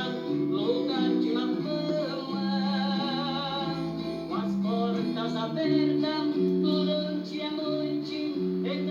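Two high, bright male voices singing an old-style sertanejo song in close first-and-second-voice harmony, with vibrato on the held notes, over a plucked guitar accompaniment.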